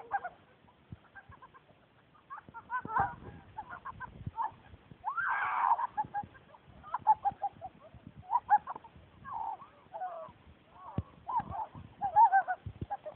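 Girls laughing and squealing in short bursts, with a longer, louder shriek about five seconds in.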